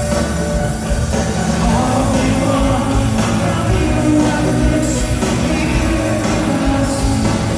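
Live rock band playing loud and steady, with electric guitars, bass and drums, heard from within an arena crowd.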